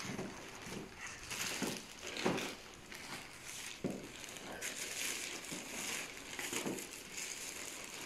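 Large plastic shopping bag rustling and crinkling as hands pull a boxed gift out of it, with irregular crackles.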